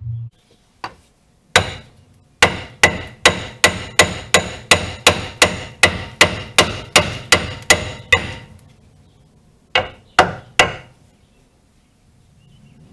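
Hammer blows on a car's wheel hub assembly: a steady run of about three sharp strikes a second for several seconds, then three more strikes after a pause. Each blow rings metallically as the hub is knocked loose from the steering knuckle.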